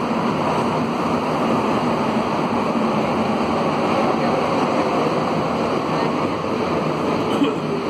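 Concarril NS-88 rubber-tyred metro train running at speed, heard from inside the car: a steady rushing ride noise with a low steady hum underneath.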